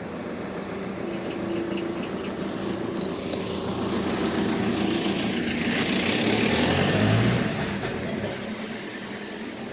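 A motor vehicle passing by, its engine growing louder to a peak about seven seconds in and then fading away.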